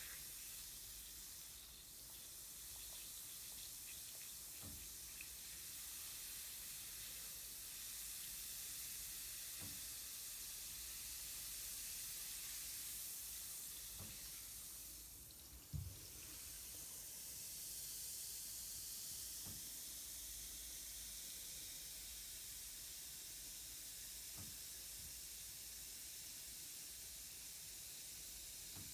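Bath bomb fizzing in bathwater: a faint, steady hiss of bubbles. A few soft knocks and one louder thump about halfway through.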